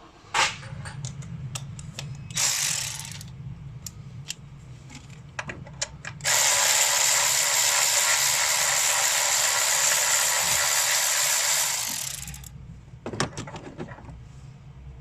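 A ratchet wrench working the bolts on an engine mount: a short burst of ratcheting about two seconds in, then about six seconds of fast, even ratcheting from around the middle. Scattered clicks and knocks of tools come before and after it.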